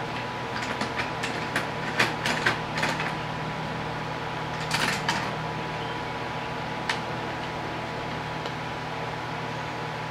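Parallel bar clamps being worked and tightened on a wooden frame: a run of sharp metal clicks and clacks over the first three seconds, a brief rattle about five seconds in and one last click near seven seconds. A steady hum runs underneath.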